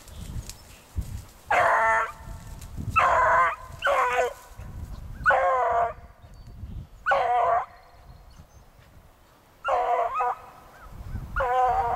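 A hound baying, about seven drawn-out bays of roughly half a second each at uneven gaps: a beagle giving tongue as it works a scent trail.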